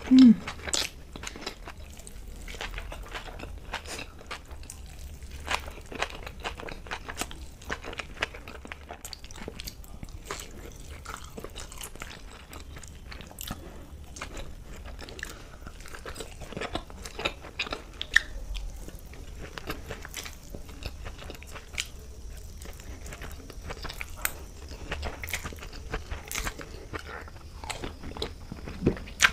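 Close-miked chewing of Indian street food, with many short, sharp crunches. Right at the start there is a brief low hum, the loudest sound here.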